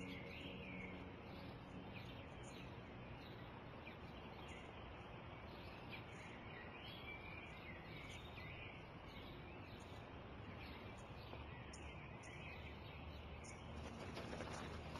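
Small birds chirping in short, scattered calls over faint, steady outdoor background noise, with a soft rise of rustling noise near the end.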